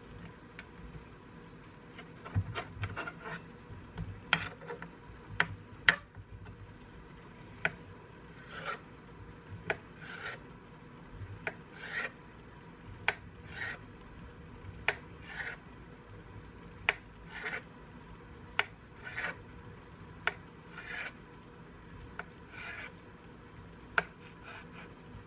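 Food being rasped or scraped by hand with a kitchen utensil: a steady run of short rasping strokes about once a second, with sharp clicks between them.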